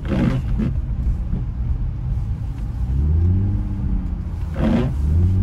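Infiniti G35 coupe's 3.5-litre V6 revving and falling back, heard from inside the cabin as the car is clutch-kicked into a drift on snow; the revs swell about three seconds in. Two brief rushing noises stand out, one at the very start and one near the end.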